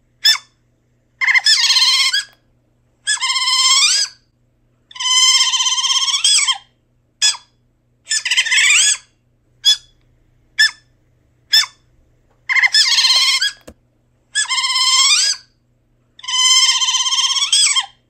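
Otter calling: a string of high-pitched calls, most about a second long and bending up and down in pitch, with single short chirps between them.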